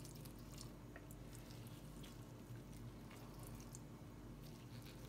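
Near silence: room tone with a faint steady hum and a few faint small clicks.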